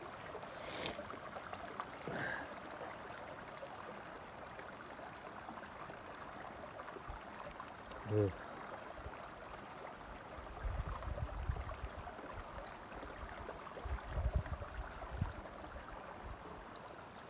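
Shallow water trickling and gurgling over rocks as a steady wash. A brief voice-like sound comes about eight seconds in, and low wind buffeting on the microphone comes and goes through the second half.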